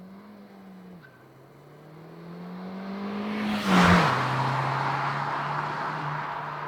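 Ford Fiesta ST's 1.6 EcoBoost turbocharged four-cylinder accelerating past: the engine note climbs, drops with an upshift about a second in, climbs again, and is loudest as the car passes about four seconds in, then falls to a lower pitch and fades as it pulls away.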